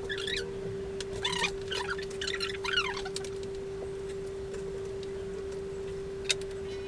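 Wet squeaks and squelches as sausage meat is squeezed by hand into a casing, clustered in the first half, over a steady hum; a single click near the end.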